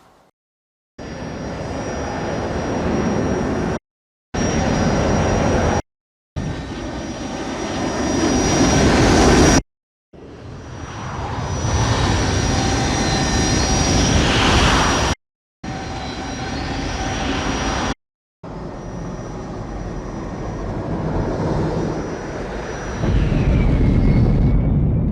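Film sound effect of the MOGUERA mecha's jet engines in flight: a jet roar with a thin, high, steady whine. It comes as about six separate clips, each cut off abruptly with a brief silence between, and several swell louder before they stop.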